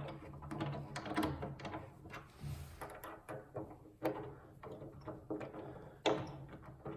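Irregular clicks and light knocks of metal bed-rail connector hardware being handled and an Allen key being worked, with sharper knocks about four seconds in and again about six seconds in.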